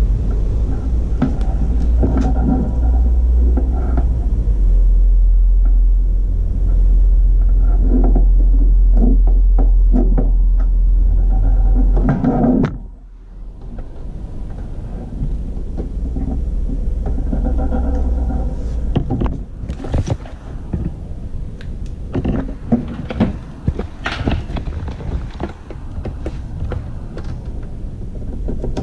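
Power and network cables being plugged into the back of a Synology DS416 NAS: scattered clicks and knocks of plugs and hands on the case, over a low rumble that drops away about twelve seconds in.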